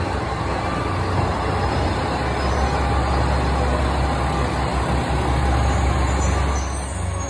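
Diesel railcar engine running with a steady low hum as a local train approaches.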